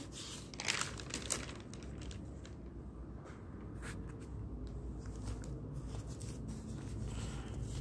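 Newspaper pages rustling and crinkling as the paper is handled and a page is turned, loudest in a quick cluster about a second in, then softer rustles over a low steady background hum.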